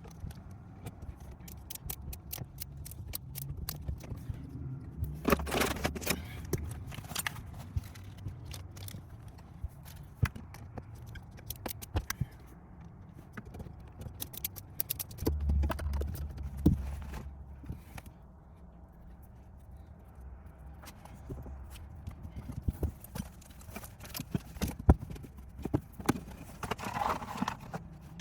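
Irregular clicks, knocks and scrapes of hands and tools working on car-audio wiring in a car, with low rumbles about five seconds in and again around the middle.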